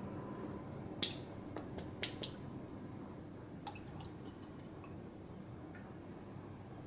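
Wire whisk stirring a thin batter in a glass mixing bowl: soft wet stirring, with a few sharp clinks against the glass about a second in.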